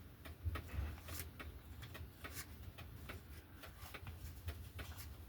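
Faint, irregular small clicks and light taps of hands working on a chainsaw as rope is pushed into the spark plug hole to serve as a piston stop, over a low steady hum.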